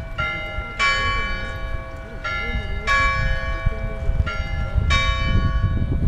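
Bells ringing in a repeating two-note pattern: two strikes on different notes about half a second apart, the pair coming round about every two seconds, each note left to ring on.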